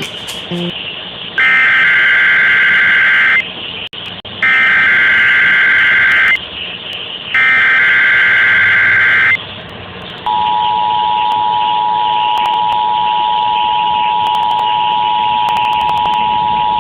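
Emergency Alert System activation heard over AM radio: three SAME header data bursts, each about two seconds of rapidly warbling high tones with a second's gap between them. Then, from about ten seconds in, the steady two-tone EAS attention signal (853 and 960 Hz), announcing a high wind warning.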